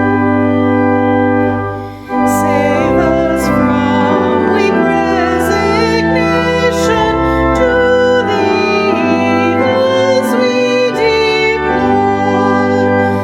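Organ playing held chords of a hymn. After a short break about two seconds in, a voice sings over the organ.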